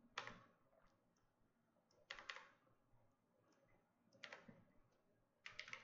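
Faint clicking of a computer keyboard and mouse in a few short clusters, with a quicker run of key taps near the end.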